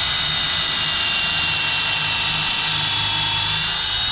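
Power drill running steadily with a high motor whine as a 3/8-inch bit bores about an inch down into a wooden gable truss.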